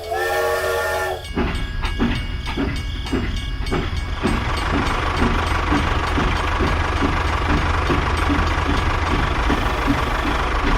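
A short, steady horn-like tone, then a small machine running with a steady rumble and a fast, regular clicking, like a miniature model vehicle's motor and gears.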